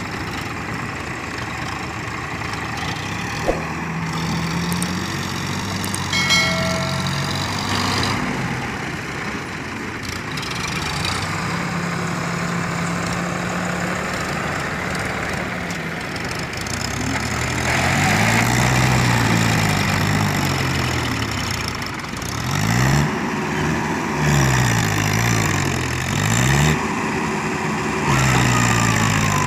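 Diesel engines of a farm tractor and a backhoe loader working a loaded trailer out of deep mud. They run steadily at first; from about halfway the engine speed rises and falls again and again as they strain under load.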